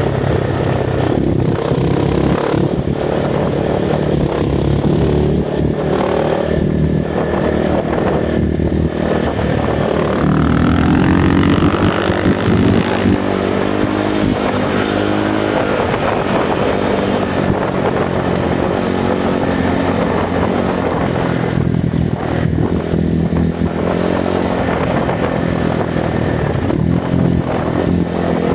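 Enduro motorcycle engine running under load on a dirt track, the revs dropping off briefly several times as the throttle is eased or gears are changed, with a long rising rev about ten seconds in.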